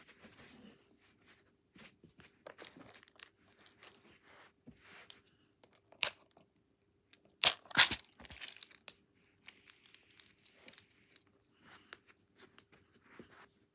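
Clear plastic compartment box of loom bands being handled and opened: light scattered rattles and rustles, a sharp plastic click about six seconds in, and a louder pair of clicks about a second and a half later as the box's lid is unclipped.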